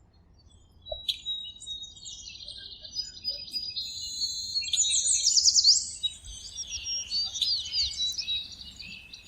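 Several songbirds chirping and singing together in a busy chorus of high, quick sweeping notes, loudest about five seconds in.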